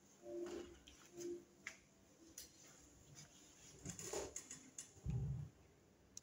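Quiet shuffling and small clicks of a child moving onto a padded piano bench, with two short squeaks near the start and a dull thump about five seconds in as she sits down.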